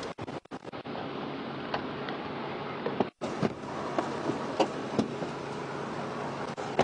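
Steady hiss inside a police patrol car, with scattered knocks and clunks as a man settles into the back seat. The audio cuts out briefly a few times near the start and once about three seconds in.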